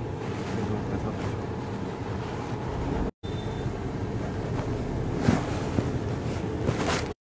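Steady road and engine noise inside a moving car's cabin, with some wind noise on the microphone. The audio cuts out briefly twice, about three seconds in and near the end.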